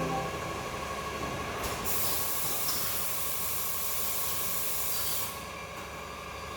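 Automated edge banding machine running with a steady motor hum. A loud hiss starts about two seconds in and cuts off after about three seconds.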